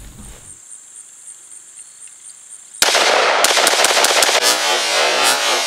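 A quiet stretch, then about three seconds in a DPMS Sportical AR-15 opens up in rapid fire: a fast string of sharp .223 shots from a magazine dump.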